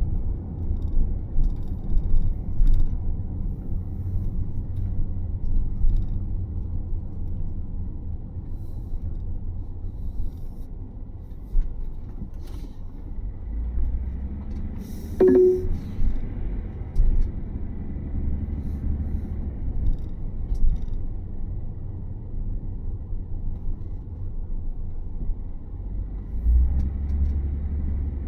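Camper van driving along a road, heard from inside the cabin: a steady low rumble of engine and tyre noise, with a brief sharp squeak about halfway through.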